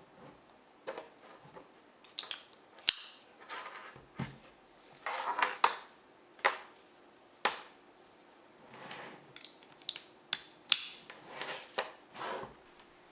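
Binoculars and their packaging being handled: a dozen or so sharp clicks and taps of hard plastic, mixed with short rustles and scrapes.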